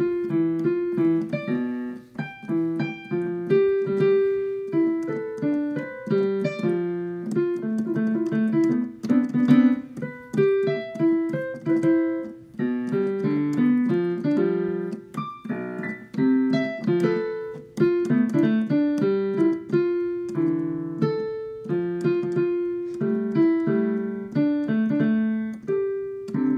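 Lively solo piano music, a quick run of notes over a bouncing bass part.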